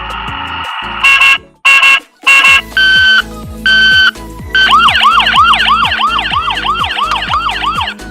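Electronic ambulance siren sounds: three short beeps and two longer steady tones, then a fast warbling yelp that sweeps up and down about three times a second, over background music.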